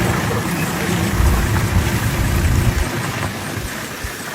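Safari vehicle's engine running at low speed, with a steady hiss of wind or road noise over it; the low engine rumble drops away about two thirds of the way in.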